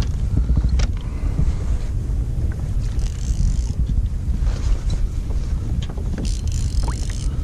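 Wind buffeting an action-camera microphone, a steady low rumble, with a few light knocks from handling gear on a kayak and two brief hissing swishes, about three seconds in and near the end.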